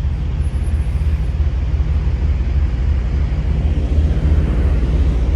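Semi truck's diesel engine running steadily, a low, even rumble.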